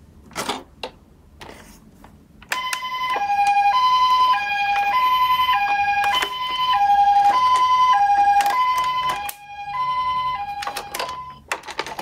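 A toy ambulance's electronic siren sounding the Japanese hi-lo two-tone pattern, switching between a higher and a lower note about every half second. It starts about two and a half seconds in and stops around nine seconds. Plastic clicks and knocks from the toys being handled come before and under it.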